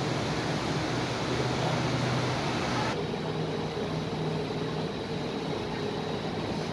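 Steady background ambience: an even hiss with a low hum, like air-handling noise in an enclosed space. The highest part of the hiss cuts out abruptly about three seconds in, and the rest carries on steadily.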